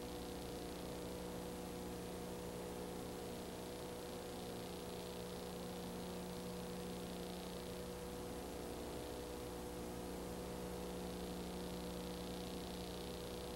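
Steady electrical hum with an even hiss and no other sound: the noise floor of a silent home-movie transfer.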